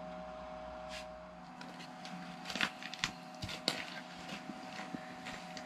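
Irregular sharp clicks and knocks, a dozen or so over about three seconds, from gear being handled at close range. They begin over a faint steady hum that fades out about a second and a half in.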